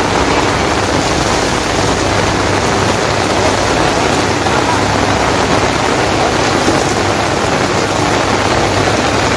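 Heavy rain pouring steadily onto a tarpaulin and umbrellas, a dense even hiss with a steady low hum underneath.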